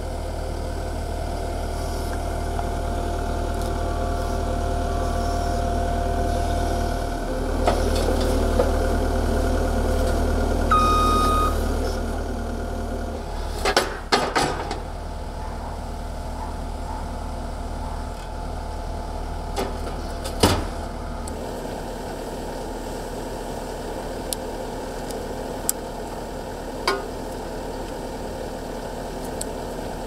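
Diesel engine of a Cat skid steer running steadily, a little louder for a few seconds mid-way, with a short beep about eleven seconds in and a few sharp clanks and clicks.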